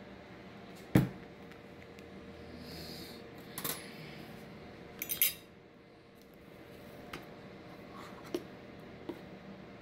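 Metal cutlery clinking on a ceramic dinner plate: a dull knock about a second in, then several separate light clinks, the sharpest a ringing double clink about five seconds in. A low steady hum sits under it.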